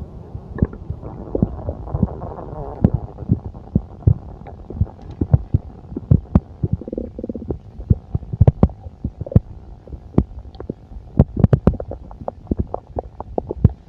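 A human stomach gurgling and rumbling, heard up close: many short pops and squelches, with a longer wavering gurgle about two seconds in and a brief pitched gurgle around seven seconds.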